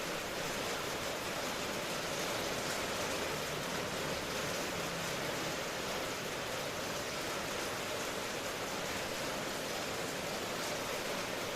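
Steady rainfall, an even hiss with no thunder.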